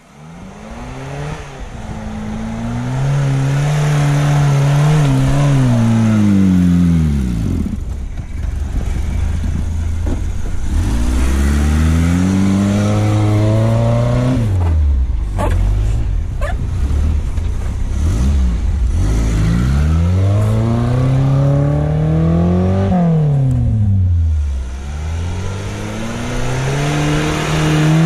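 Suzuki SJ410's small four-cylinder petrol engine revving hard and falling back again and again as the 4x4 pushes through deep snow. It starts faint and grows loud within the first two seconds, then the engine note climbs and drops about four times.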